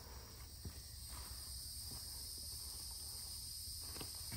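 Insects droning in a steady, high, even hum, with a couple of faint knocks.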